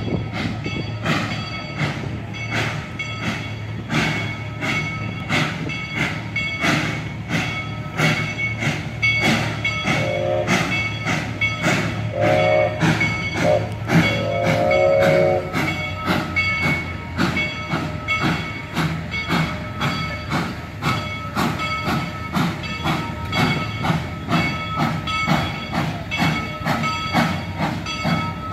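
Steam locomotive approaching slowly, its bell ringing with an even stroke about twice a second. Its whistle sounds a few short and long blasts about a third of the way in.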